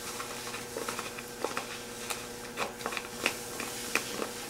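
A plastic spoon stirring and mashing a stiff dough of molasses and herbal wormer powder in a plastic tub: irregular soft clicks and scrapes.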